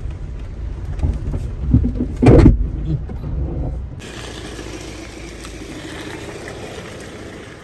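A car driving, with low rumbling and knocks and one loud thump about two seconds in. About four seconds in it changes abruptly to a quieter, steady driving noise.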